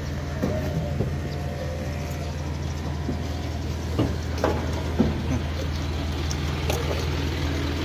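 Truck engine idling steadily, with a few sharp knocks about four and five seconds in.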